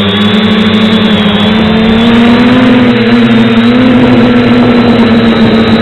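Electric motors and propellers of an FPV drone, heard close from its onboard camera: a loud, steady whine whose pitch wavers slightly up and down as the throttle shifts in flight.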